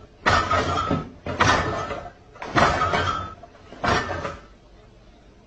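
Refrigerator door and the things in it rattling and knocking in four loud bursts about a second apart, as a cat clambers on top of the open door.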